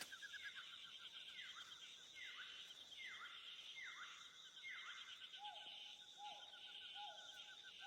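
Faint outdoor animal chorus: a steady pulsing buzz and trill, with a series of short calls that each slide downward in pitch, about one a second. About halfway in, a second, lower-pitched series of falling calls joins.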